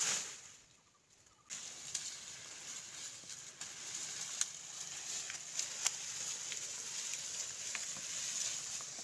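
Dry vine stalks and leaves rustling and cracking as they are pulled up and gathered by hand, scattered sharp clicks over a steady high hiss. About a second and a half in the sound comes in suddenly after a moment of quiet.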